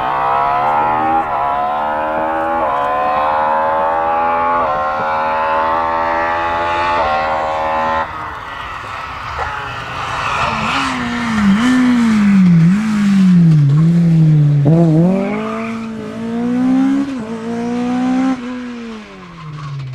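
Opel Kadett C-Coupé rally car at full throttle, revs climbing and dropping back at each upshift about four or five times. Then the engine revs rise and fall as the car brakes and turns, with bursts of tyre noise.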